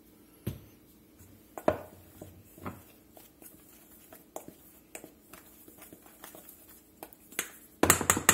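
Seasoning being mixed by hand into flour in a stainless steel bowl: scattered soft knocks and scrapes as the bowl shifts on a wooden cutting board, with a louder burst of clatter near the end.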